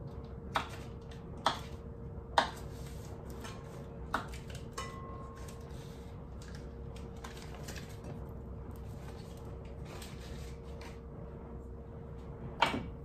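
Knife cutting butter on a wooden cutting board: a few sharp knocks of the blade and dishes against the wood in the first four seconds, and one more loud knock near the end, over a steady hum.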